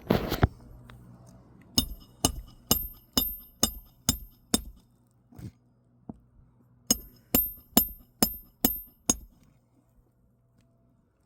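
Hammer blows ringing off metal: a short scrape at the start, then two runs of about six sharp strikes, roughly two a second, with a single strike between them.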